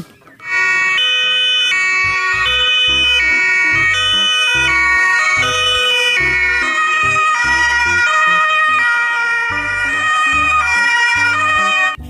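Several ambulance two-tone sirens sounding together out of step, each alternating between a high and a low note.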